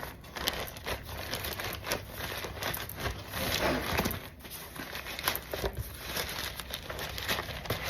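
Parcel packaging crinkling and crackling in irregular bursts as it is handled and opened.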